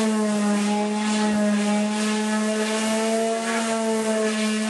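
An electric power tool's motor running steadily: a constant hum with a clear pitch and overtones.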